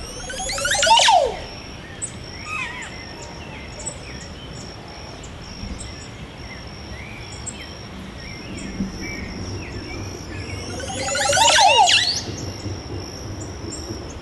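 Montezuma oropendola giving its gurgling song twice, about ten seconds apart: each a bubbling cascade of sliding notes ending in a loud falling note. Small scattered bird chirps and a steady high-pitched whine run underneath.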